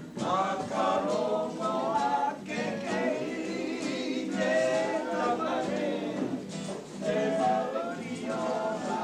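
A small group singing a Māori waiata together, a woman's and men's voices in sung phrases with short breaks, over a strummed acoustic guitar.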